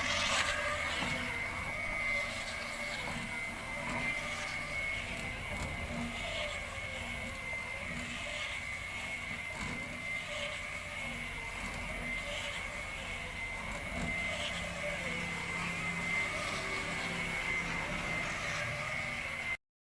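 Electric cocoa paste refining machine running steadily: a constant high whine over a low motor hum, with faint regular clicks a little more than once a second. The sound cuts off suddenly near the end.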